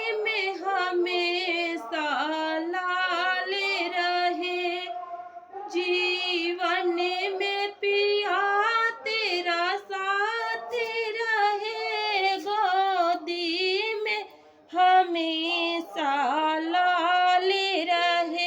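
A woman singing a sohar, a folk song for a child's birth, unaccompanied, in a high voice with bending ornamented notes. There are short breaks between phrases, the longest just after five seconds and again around fourteen seconds.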